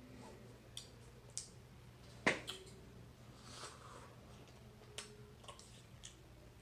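Chopsticks clicking against a Cup Noodles cup during eating: a few sharp light clicks, the loudest a little over two seconds in, with a brief slurp of noodles about halfway through.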